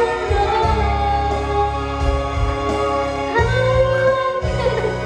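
A woman singing karaoke into a corded microphone, her voice amplified over a karaoke backing track with strong bass notes.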